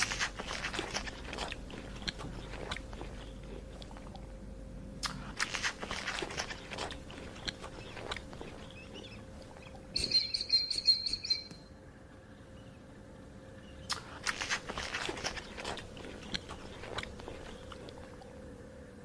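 A small animal crunching and chewing food in bouts of quick crackly bites. About ten seconds in comes a short run of rapid high-pitched chirps.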